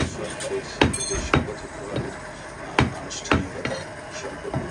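Butcher's cleaver chopping goat meat on a wooden block: about eight sharp chops at uneven intervals.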